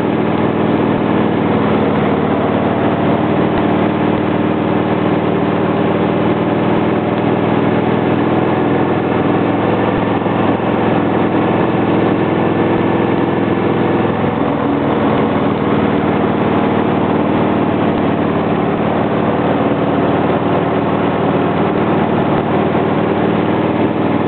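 Motorcycle engine running steadily at road speed, heard from the bike carrying the camera, over a steady rush of wind and road noise. The engine note changes about halfway through, then settles again.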